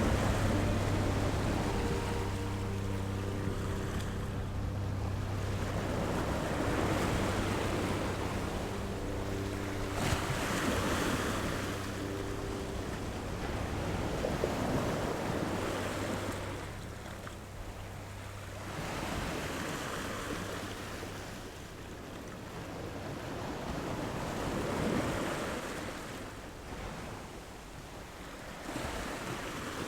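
Ocean waves rolling in and washing back, the surf swelling and fading every few seconds. A steady low hum with faint held tones sits under the surf during the first half.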